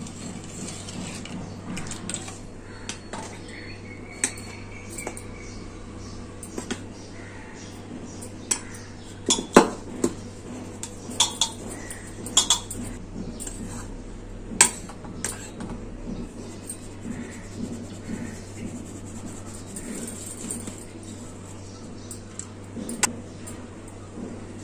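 Scattered clinks and knocks of steel kitchenware: a steel sieve knocking against a stainless-steel plate as flour is sifted, and a spoon in the flour. A steady low hum runs underneath.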